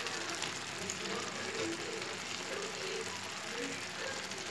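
Raw mango pieces in jaggery syrup simmering in a kadai: a steady, soft bubbling sizzle as the jaggery melts into the syrup.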